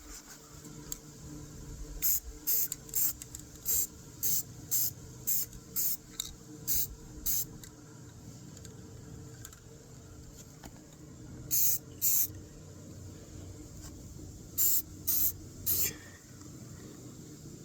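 Aerosol spray can of clear coat being sprayed in short hissing bursts, about two a second for several seconds, then after a pause two more bursts and three more near the end.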